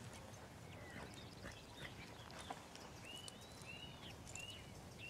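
Quiet countryside ambience with a bird calling: a run of short, high chirps, each rising then falling, about twice a second through the second half.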